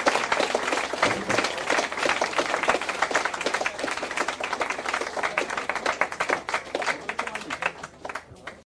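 Audience applauding, a dense patter of many hands clapping that thins out and fades over the last couple of seconds.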